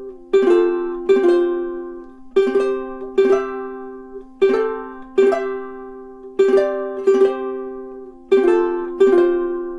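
Kiwaya KS-4PG koa pineapple soprano ukulele being strummed. Chords come in slow pairs about every two seconds, each left to ring out and fade.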